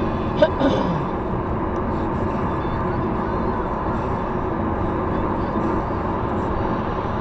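Steady road and engine noise of a car driving at highway speed, heard inside the cabin. About half a second in there is a brief click and a short falling sound.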